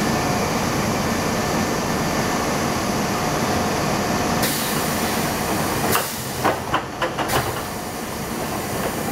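Sound inside a Keisei 3500-series commuter train car: a steady rumble with a faint steady tone, and a sharp hiss that starts about halfway through. Near the end the noise drops and a few short knocks and clunks follow.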